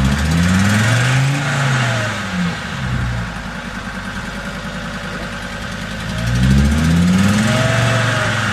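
Land Rover Defender engine revving up and falling back twice as the lifted truck churns through deep mud, with a steady lower-revving stretch in between.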